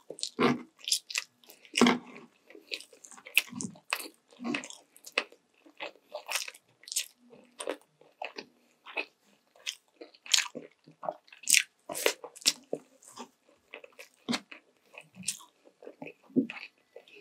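A person biting into and chewing sweet and sour chicken legs, close to the microphone: a quick, irregular run of sharp clicks and smacks, several a second.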